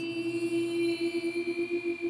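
Singing bowl ringing just after being struck: one long steady tone with a faint shimmer of higher tones above it, its loudness pulsing several times a second.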